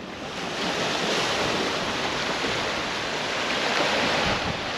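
Sea waves washing onto the shore in a steady rush of surf, swelling about a third of a second in.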